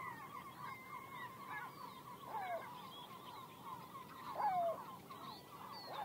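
A flock of migrating birds calling: many short calls overlap throughout, with a few louder downward-slurring calls, the loudest about four seconds in.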